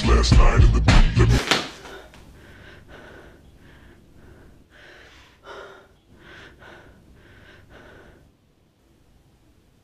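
Loud music with a heavy beat cuts off about a second and a half in. A woman's quick, heavy breathing follows: about a dozen short gasping breaths over six seconds.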